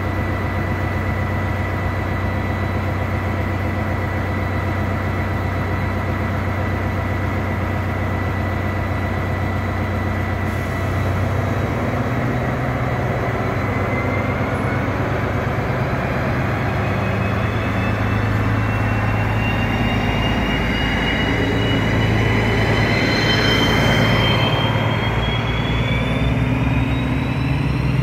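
DB class 218 diesel-hydraulic locomotive idling, then about ten seconds in opening up and pulling its train out of the station. The engine grows louder and a high whine climbs steadily in pitch as it accelerates past, loudest as it goes by near the end, followed by the coaches rolling past.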